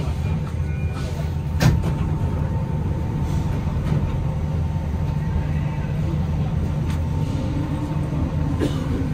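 Interior noise of an Alstom NS-93 rubber-tyred metro car: a steady low rumble and hum with a constant high whine over it. A sharp knock about a second and a half in.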